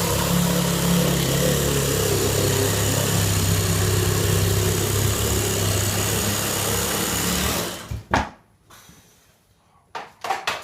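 An electric power tool runs steadily for about eight seconds with a constant hum, then cuts off suddenly. A few short clicks and knocks follow.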